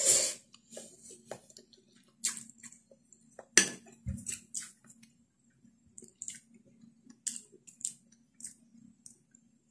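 Eating noodles: a slurp from a spoonful at the start, then quiet chewing and scattered clicks and taps of wooden chopsticks and a metal spoon against ceramic bowls, with a sharper knock about three and a half seconds in.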